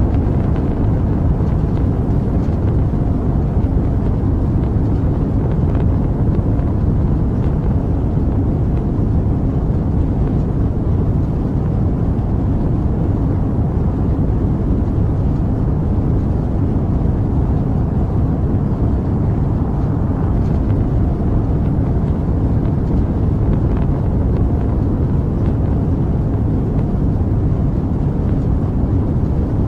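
Rocket engine noise sound effect: a loud, steady, deep rumble with no breaks or changes, its weight in the low end.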